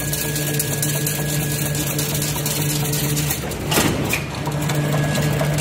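Edge-folding unit of a chain link fence machine started on automatic: its motor comes on suddenly and runs with a steady hum. The hum dips a little past three seconds in, with a short clatter at about four seconds, then picks up again.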